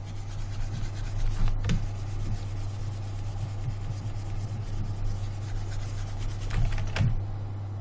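Soft rubbing and scratching at the desk as sculpting strokes are drawn, over a steady low hum, with a short click a little under two seconds in and another about seven seconds in.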